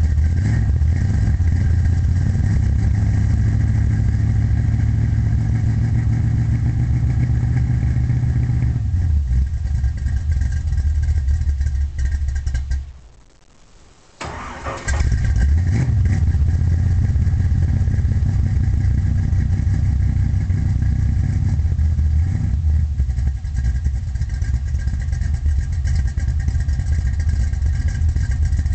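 1972 Chevy Nova's small-block V8 with a solid-lifter cam and Flowmaster exhaust idling roughly. About twelve seconds in the sound dies away for a second or two, then the engine fires up again and settles back into its rough idle.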